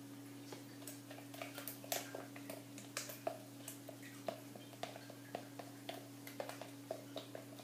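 Spatula scraping and tapping inside a plastic mixing container as thick cold-process soap batter is scraped out into the mould, in a run of irregular clicks and knocks. A steady low hum sits under it.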